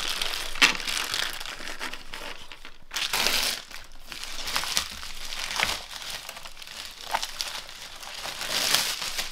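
Clear plastic wrapping crinkling and rustling as it is pulled off a new ski, in irregular handfuls, louder about three seconds in and again near the end.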